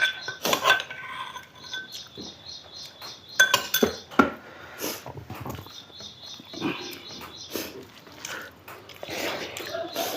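Close-up eating sounds: chewing and lip-smacking with scattered clinks of dishes and utensils, the sharpest clinks about three and a half to four seconds in.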